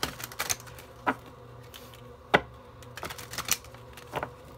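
A series of about eight short, sharp clicks and taps at irregular intervals, the loudest about two seconds in, over a faint steady hum.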